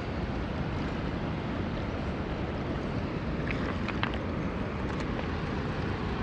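Steady rushing of a fast-flowing river, mixed with wind on the microphone, at an even level throughout.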